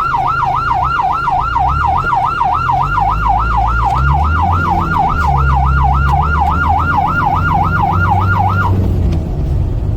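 Ambulance siren on a fast yelp, its pitch swinging up and down about three to four times a second and cutting off near the end, over a low vehicle engine rumble.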